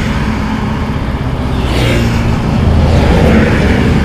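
Road traffic going past: a steady low rumble, with a car swishing by about two seconds in.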